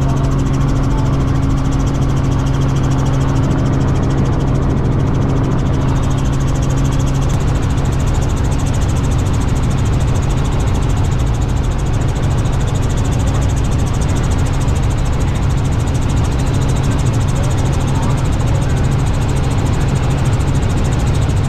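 Robinson R66 helicopter in flight, heard from inside the cabin: a steady, loud drone of the turbine engine and rotors with a low hum underneath.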